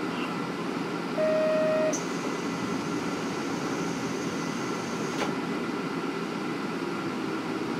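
KiHa 47 diesel railcar standing with its replacement Komatsu diesel engine idling, a steady low rumble. A short steady beep sounds about a second in, and a faint high tone follows for about three seconds.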